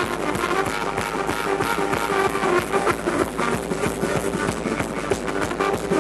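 Live band playing an instrumental passage with a steady beat: trumpet over upright double bass and drum kit.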